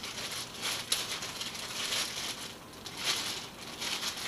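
Clear plastic wrapping crinkling and rustling in a run of short, irregular bursts as it is pulled off a new fishing rod.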